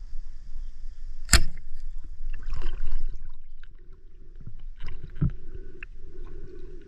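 Water splashing and sloshing in a stream. About a second in there is one very sharp snap, and another knock comes about five seconds in.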